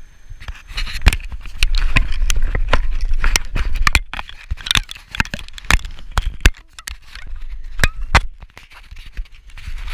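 Handling noise on an action camera: irregular sharp clicks and knocks, with clothing rubbing against the camera housing, over a low wind rumble. The knocking is densest in the first half and thins out after about 7 seconds.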